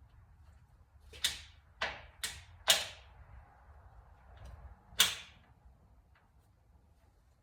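Five sharp metallic clacks, four in quick succession and a fifth about two seconds later, each ringing briefly: the freshly installed gearbox of a 1966 BSA A65L being shifted through its gears by hand, the selector clicking into each gear.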